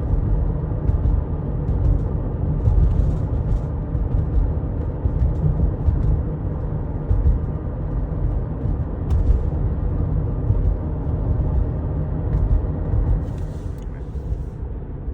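Car being driven, heard from inside the cabin: a steady low rumble of engine and tyres on the road.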